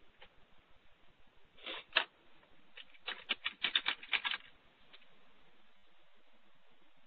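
Rapid light clicks like keyboard typing, heard through narrow, muffled call audio: a short flurry about two seconds in, then a quicker run of about a dozen clicks a second later. Faint hiss after that.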